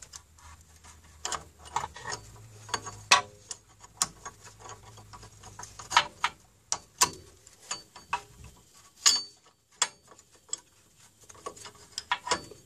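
Irregular metallic clicks and clinks as new parking-brake shoes and their return springs are handled and fitted onto a Mercedes SLK 230's rear hub, with a few sharper clicks among them.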